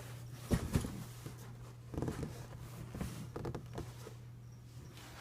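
Handling noise: a few soft knocks and rustles, the loudest about half a second in and another cluster between two and four seconds, over a steady low hum.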